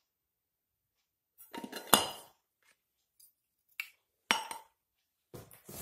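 Hard plastic parts of a satellite LNBF and its black plastic mounting clamp knocking and clicking together as they are handled: a clatter with a sharp click about two seconds in, a single sharp knock a little past four seconds, and more clatter near the end.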